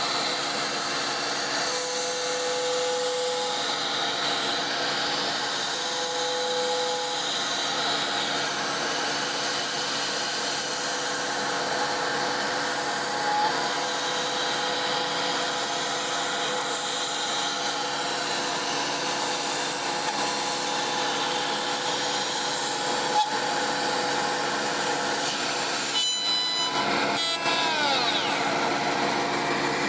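CNC router spindle with a 3-flute bit milling a pocket at about 10,000 rpm, a steady machining whine over the vacuum hold-down pump, its cutting tone coming and going as the toolpath engages. Near the end come a few clicks and several falling tones.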